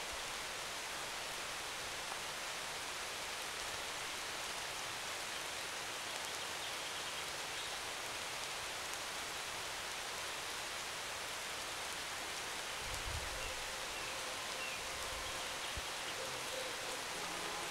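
Steady, even rain-like hiss, with a brief low thud about thirteen seconds in.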